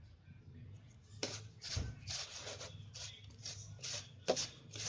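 A hand rubbing and mixing ground fish-feed pellet meal in a plastic bowl while water is added a little at a time, dampening it into bait dough. The strokes come about three a second, starting about a second in, with one louder stroke near the end.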